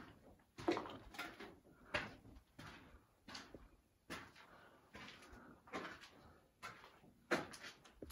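Faint footsteps scuffing over a gritty, rubble-strewn concrete floor, roughly one to two steps a second with uneven spacing.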